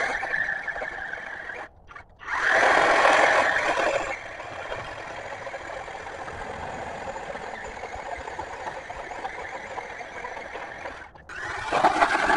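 Battery-powered chainsaw cutting into a tree trunk with a steady electric whine. Loud cutting at first with a brief stop about two seconds in, a quieter stretch through the middle, a short stop near the end, then loud cutting again.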